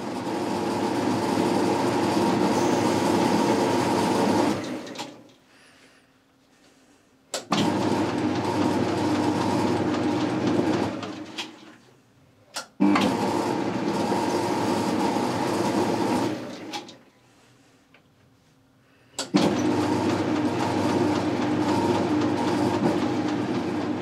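Boxford lathe running under power while taking light screwcutting passes on an internal thread: four steady runs of about four seconds each, stopping between passes, the last three each starting with a sharp click.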